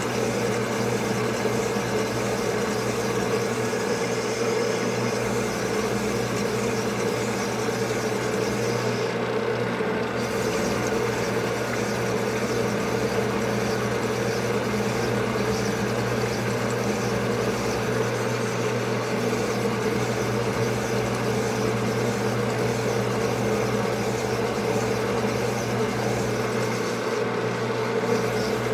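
Sunnen LBA-666 cylinder hone running steadily, its motor humming while the stones grind inside a two-stroke motorcycle cylinder bore as the cylinder is stroked back and forth along the mandrel. The higher grinding hiss drops out briefly about nine seconds in and again near the end.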